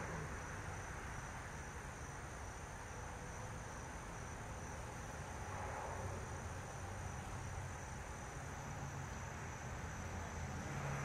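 Insects trilling in two steady high-pitched tones, one of which stops about eight seconds in, over a faint low rumble of outdoor background noise.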